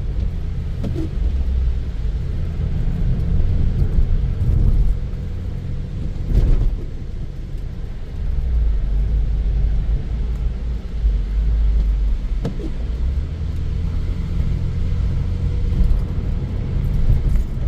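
Low steady rumble of a car driving on the road, engine and tyre noise, with a brief knock about six and a half seconds in and another about twelve and a half seconds in.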